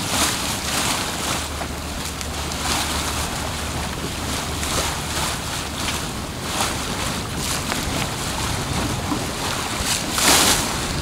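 Bow wave of a sailing yacht under way, water rushing and splashing along the hull in repeated surges, with wind buffeting the microphone. The loudest splash comes about ten seconds in.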